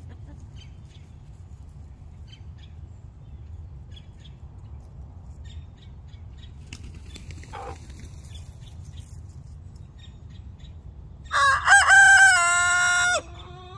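Rooster crowing once near the end, a loud cock-a-doodle-doo of about two seconds that cuts off sharply. He is a young late-blooming rooster that has only just begun to crow.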